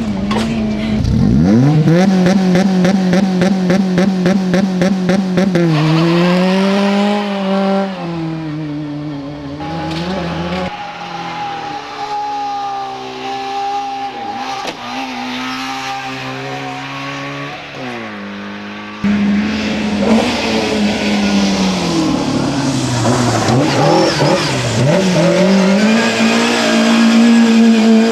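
Racing car engine revving hard, its pitch climbing steeply and falling back again and again as it runs up through the gears and lifts off. The sound changes abruptly twice, at about 11 and 19 seconds.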